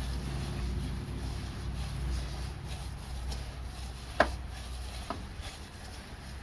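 Hands mixing a wet ground-beef meatloaf mixture in a bowl, with a sharp knock about four seconds in and a lighter one a second later, over a low steady hum.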